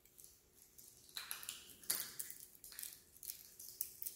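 Faint, scattered crackles and clicks of plastic and foil seals being peeled off prefilled communion cups, the loudest about two seconds in.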